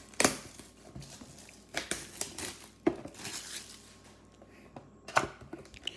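A trading-card box and its wrapping being opened by hand: crinkling and tearing of wrapper with a few sharp clicks and knocks of cardboard.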